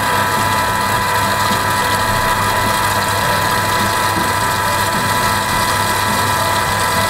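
Thermomix food processor motor running steadily, a constant whine over a low hum, blending a garlic and almond cream while oil is added little by little so that it emulsifies.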